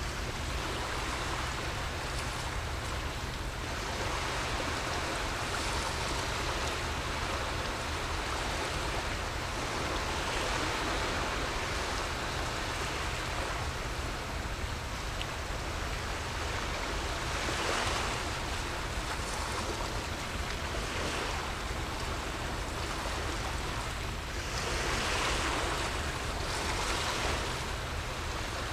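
Small waves washing against the shore: a steady rush of water that swells every few seconds, with a constant low rumble underneath.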